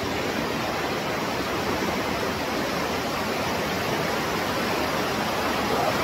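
Fast-flowing mountain river rushing over rocks: a steady, even hiss of white water.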